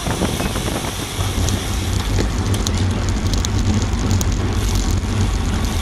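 Wind buffeting the microphone of a bike-mounted action camera in a fast pack of racing bicycles, a low steady rush that gets louder about a second and a half in as the rider speeds up. Scattered sharp ticks are heard through the middle.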